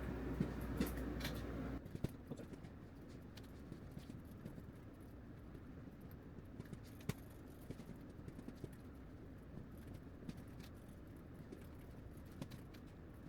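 Faint handling noise of crocheting with a hook and yarn, with scattered small clicks and one sharper click about seven seconds in. A low hum stops abruptly about two seconds in.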